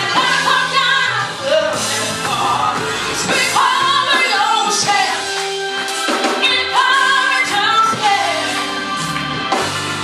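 Gospel music: singing over band accompaniment with steady bass notes.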